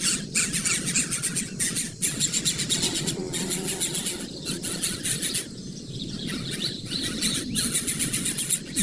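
Birds chirping in dense, rapid high-pitched chatter, easing off briefly past the middle, over a steady low hum.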